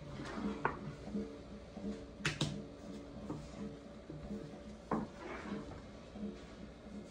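A baklava rolling pin knocking and rolling on the dough sheets and board, a few sharp wooden knocks, two of them close together about two seconds in. Faint background music with a steady pulse underneath.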